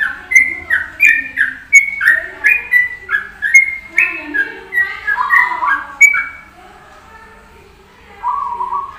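Zebra dove (perkutut) singing: a quick run of short notes, about three a second, lasting some six seconds, then a pause and a brief further phrase near the end.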